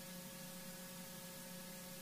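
Quiet, steady electrical hum with an even hiss underneath, unchanging throughout: the background noise of the livestream's audio system with no other sound.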